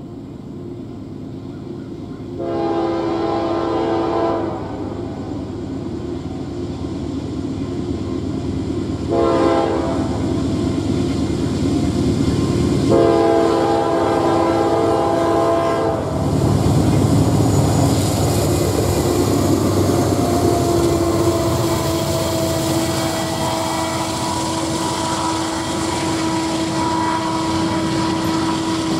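Air horn of a Norfolk Southern GE D9-40CW lead locomotive sounding three blasts for a grade crossing: a long one, a short one about five seconds later, then another long one. From about halfway through, the loud low rumble of the passing diesel locomotives and their wheels on the rails takes over.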